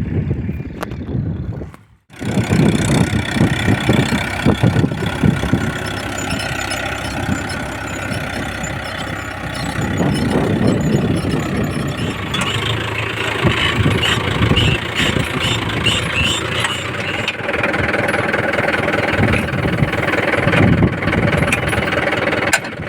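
Mahindra Yuvo 415 DI tractor's diesel engine running while it pulls a two-mouldboard reversible plough through hard soil. The sound breaks off for a moment about two seconds in, then resumes.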